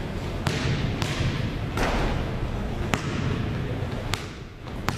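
Basketballs bouncing on a hardwood gym floor: about six sharp thuds at uneven intervals, echoing in the large hall.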